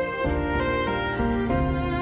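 Background music: a melody of held notes that step from one pitch to the next over a sustained lower line.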